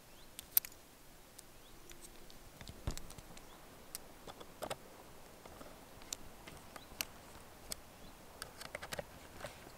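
Small, scattered metal clicks and taps of a folding hex-key tool turning the screws that fix the lens board to a wooden 4x5 field camera, with faint handling noise between them.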